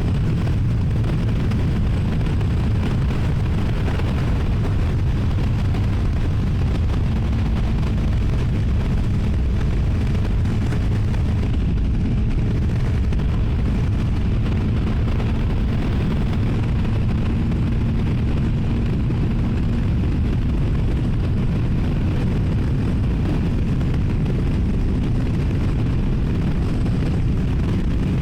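CFMoto 300NK's single-cylinder engine on its stock exhaust, running at a steady cruise under heavy wind rush on a helmet-mounted microphone. The engine note drifts only slightly up and down.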